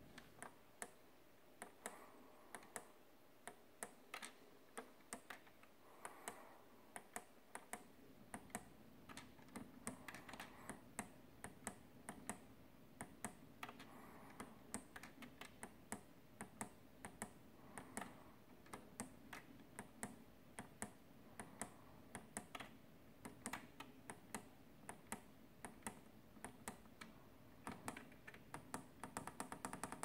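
Push buttons on a Miele G 2225 SCi dishwasher's control panel clicking as they are pressed one after another, coming quicker near the end as one button is pressed repeatedly.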